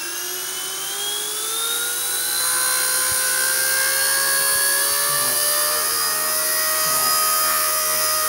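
XK K124 radio-controlled helicopter's electric motors and rotors spooling up, a whine rising in pitch and loudness over the first two or three seconds and then holding steady.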